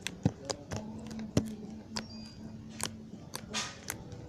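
Fluffy slime handled and squeezed by hand, making irregular sharp sticky clicks and pops over a faint steady hum.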